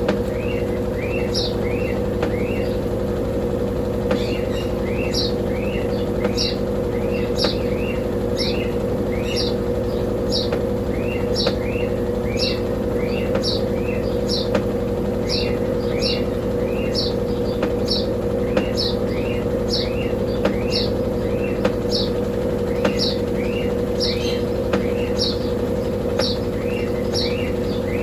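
Brastemp Double Wash 15 kg washing machine spinning its mini basket on an intermediate spin: a steady, even motor hum. Over it a small bird chirps over and over, about one or two chirps a second, with a few short pauses.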